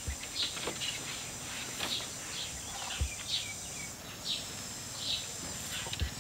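Outdoor rural ambience: a steady high-pitched insect drone with short bird chirps every half second or so, and a few soft knocks.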